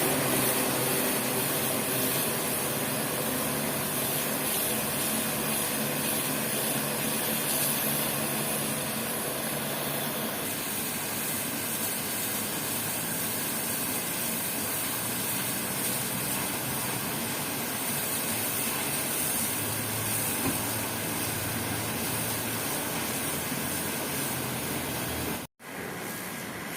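Pressure washer (water jet machine) spraying water onto a floor to strip moss: a steady hiss of the jet over the hum of the machine. The sound drops out for an instant near the end.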